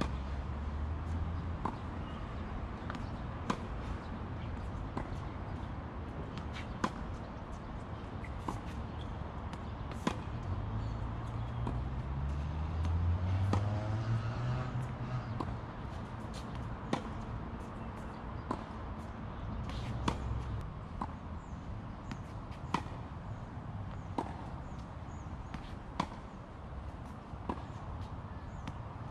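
Tennis ball being struck by racquets in a baseline rally on an outdoor hard court: sharp pops every second or two, with softer ball bounces between. A low hum rises in pitch and swells midway, then fades.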